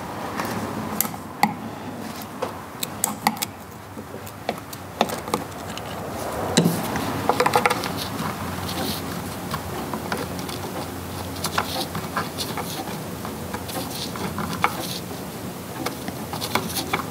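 Scattered small clicks, taps and rustles of gloved hands and a small prying tool working the red plastic plugs on a power steering pump, with a quicker run of clicks about seven seconds in.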